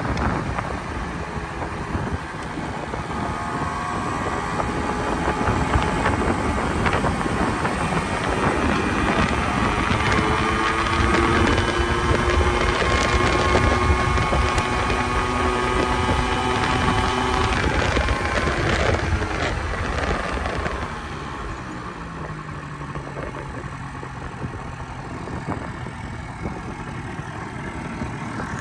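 Honda Spree scooter's 49cc two-stroke engine running at road speed, with wind rushing over the microphone. About two-thirds of the way through the engine note falls in pitch and gets quieter, as the throttle is eased off.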